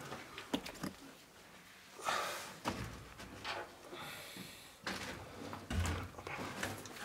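Scattered knocks, scuffs and scrapes of people and gear moving through a cramped bunker passage, with a longer scrape about four seconds in and a heavy low thump near six seconds.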